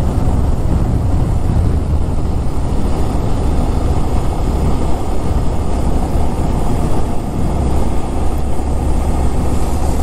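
Steady riding noise on a Honda Monkey 125: wind rushing over the microphone with the bike's air-cooled single-cylinder engine running underneath at a steady cruise.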